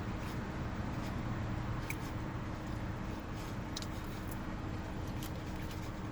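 Eating sounds: faint scattered clicks and smacks of chewing and utensils over a steady low background hum.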